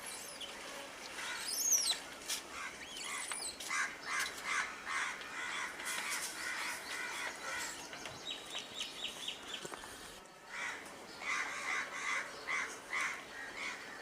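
Birds calling outdoors: many short calls repeating throughout, with a few quick sweeping chirps near the start and a fast run of ticking notes about eight seconds in.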